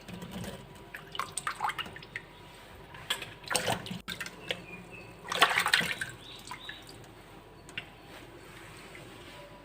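Fruit being washed by hand in a bowl of water: irregular splashing and sloshing in several bursts, the loudest a little past halfway.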